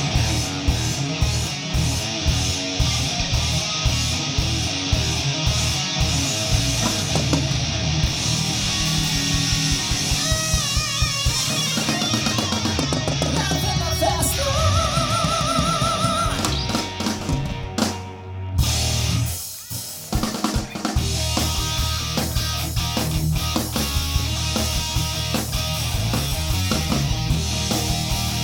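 Live rock band playing an instrumental passage on drum kit and electric guitar. The music thins out briefly about two-thirds of the way through, then the full band comes back in.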